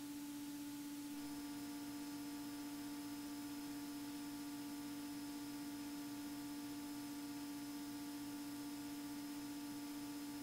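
Faint steady hum of the Beechcraft Bonanza A36's piston engine and propeller in flight, with a low even pulsing beneath it. A thin high tone joins about a second in.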